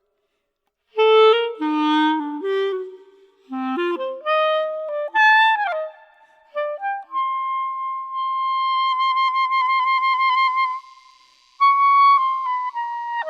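Solo clarinet: after a brief silence, short leaping notes and a quick downward slide, then a long high held note that begins to flutter, followed by a few notes stepping downward near the end.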